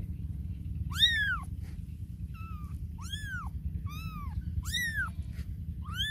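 Very young kittens mewing: about six high-pitched cries, each rising then falling in pitch, the loudest about a second in, over a steady low background rumble.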